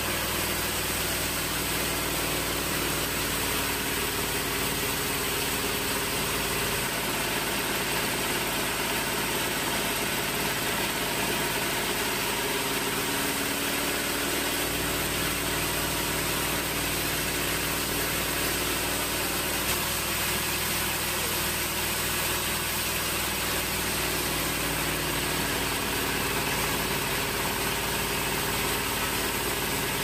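Band sawmill running steadily as its blade rips lengthwise through a large mahogany log: an even machine hum with a thin high whine. The lowest part of the hum drops away for several seconds in the middle, then returns.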